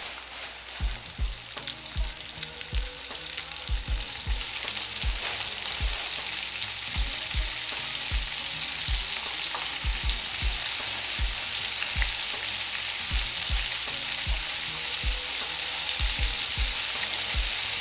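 Floured chicken wings frying in vegetable oil in a cast iron skillet: a steady sizzle that grows a little louder, with short low thumps every half second or so.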